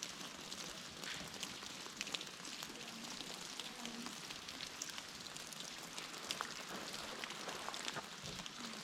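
Faint steady rain, with scattered drops and drips of water ticking on surfaces.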